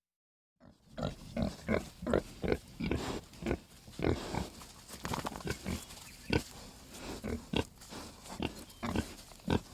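Piglets grunting, many short calls a second, overlapping and irregular, starting about half a second in.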